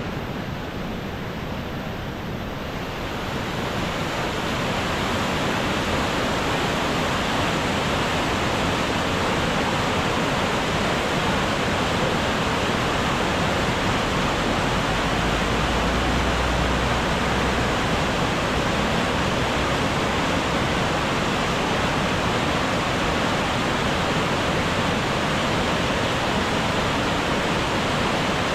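Mountain waterfall: water rushing and crashing steadily over rocks. It grows a little louder over the first few seconds.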